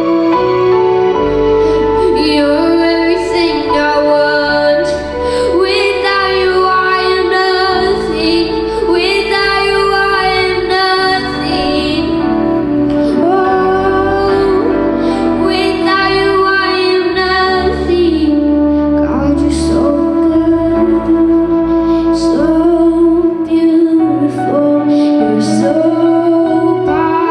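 Worship music: a woman singing a slow song over sustained keyboard chords and bass.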